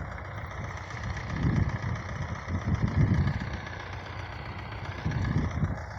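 Tractor engine running steadily, swelling in level about a second and a half in and again around three seconds.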